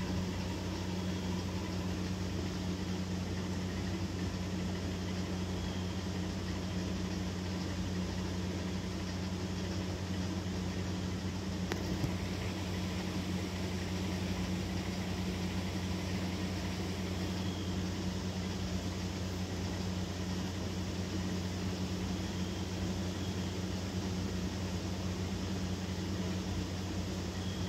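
Steady low machine hum running without change, with one faint click about halfway through.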